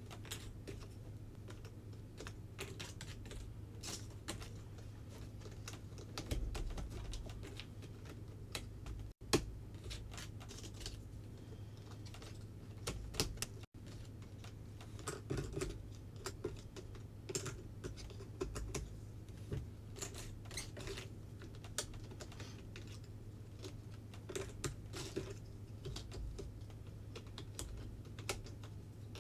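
Jigsaw puzzle pieces clicking and tapping as they are picked up, handled and set down on the puzzle board: many quick, irregular small clicks.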